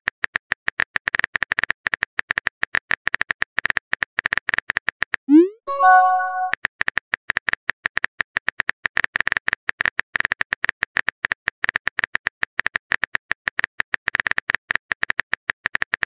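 Phone-keyboard typing sound effect: a fast, uneven run of sharp clicks. About five seconds in it breaks off for a message-sent sound, a short rising swoop followed by a bright multi-note chime, then the rapid typing clicks resume.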